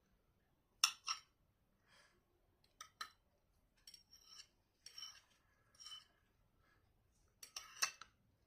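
Knife and fork clinking and scraping against a plate during a meal: a series of short, sharp clinks and scrapes, with a cluster of louder clinks near the end.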